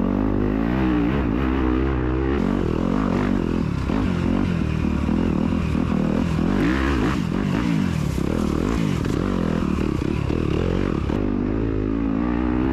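2021 Yamaha YZ250FX's single-cylinder four-stroke engine revving up and down continually as the dirt bike is ridden hard along a rough woods trail.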